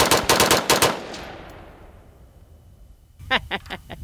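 AR-15 rifle fired rapidly through a Freedom Ordnance FG-15 trigger crank, at about five shots a second. The last few shots come in the first second, then the range echo dies away over about two seconds.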